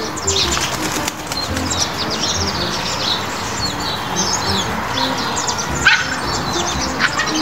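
Many birds chirping and calling continuously, with background music and a stepping bass line underneath.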